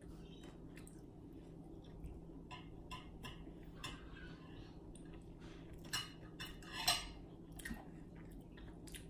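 Faint sounds of eating by hand: fingers working rice and fish on a plate, with soft chewing and mouth clicks, scattered irregular ticks with a couple of louder smacks about six and seven seconds in. A steady low hum runs underneath.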